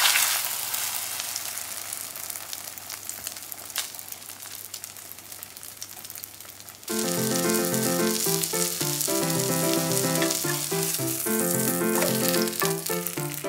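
Egg-battered slice of pork neck sizzling in hot oil as it is laid into the frying pan, loud at first and dying down over several seconds. About seven seconds in, background music takes over.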